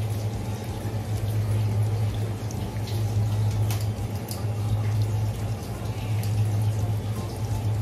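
Tap water running into a sink, with a few light clicks and knocks, over a steady low hum.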